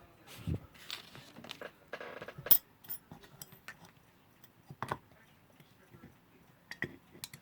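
Small metal alarm-clock parts clicking and clinking as they are handled and set down on the work surface, with a scatter of light taps and one sharper click about two and a half seconds in.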